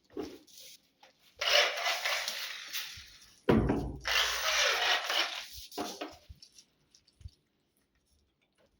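Power drill driving screws through a door hinge into wood, in two bursts of about two seconds each.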